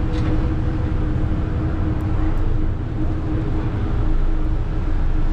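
Engine drone of the Monsoon Clipper river bus under way, heard inside its passenger cabin: a steady deep rumble with a low hum over it.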